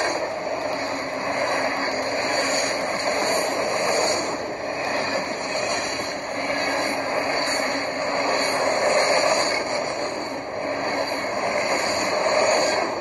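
Model freight train cars rolling past close by on the track, a steady wheel-on-rail rumble that swells and fades a little every few seconds.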